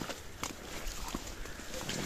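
A person moving and stepping in dry cattail reeds in shallow marsh water: rustling, crackling stalks and scattered small knocks.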